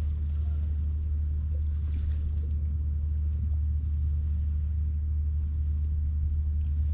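A steady, unbroken low rumble with nothing else distinct above it.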